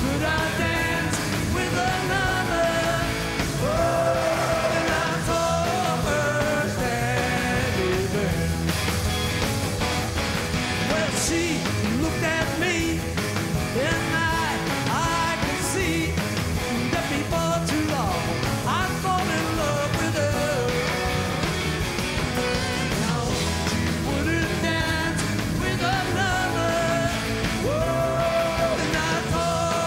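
Live rock band playing a rock and roll song: drum kit, bass and electric guitar, with lead vocals sung over it.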